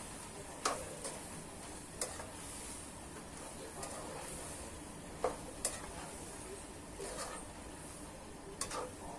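Celery stir-frying in a wok: a steady sizzle, with the spatula scraping and several sharp knocks of it against the pan.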